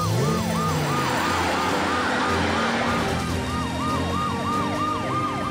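Emergency sirens of cartoon rescue vehicles heading out on a call: a fast repeating yelp, about four cycles a second. A second, slower wail joins near the end.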